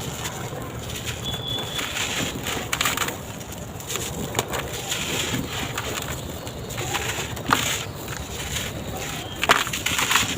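Dry sand-cement blocks crumbling in a tub: gritty crunching with many sharp cracks, the loudest about seven and a half and nine and a half seconds in.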